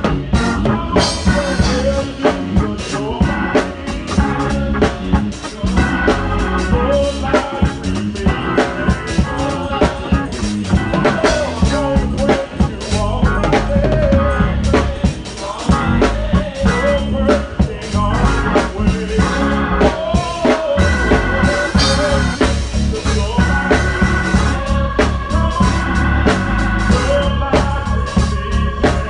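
Live gospel band music: a drum kit played up close, with an organ. Busy drum strikes run throughout, and held organ chords stand out more near the end.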